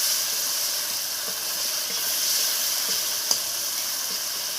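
Onion, green chilli and coriander paste sizzling steadily in hot oil in a kadai, frying on a low flame, with one sharp tap a little past three seconds in.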